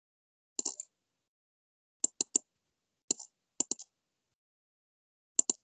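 Sharp computer mouse clicks in short groups of two or three, with silence between them.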